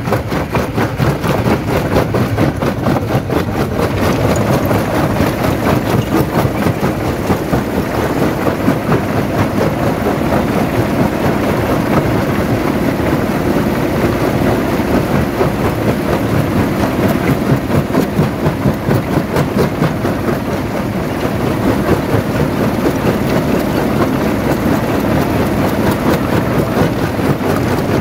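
Stone jaw crusher running and crushing rock: a loud, steady rumble packed with rapid knocks and rattles.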